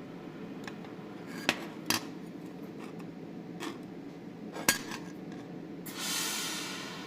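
Metal pieces clink sharply a few times over a steady low hum, then a hiss lasts about a second near the end.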